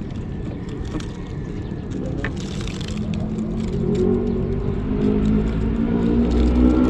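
An engine running at a steady pitch, growing steadily louder as it draws closer, with a deep rumble building over the last couple of seconds.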